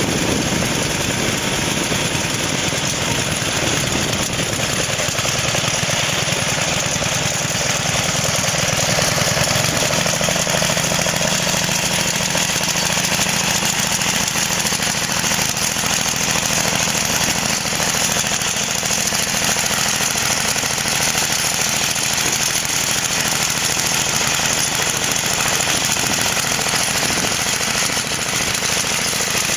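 Small gas engine on a homemade motorized sled running steadily, driving a tire-chained front wheel that pulls the sled across snowy ice.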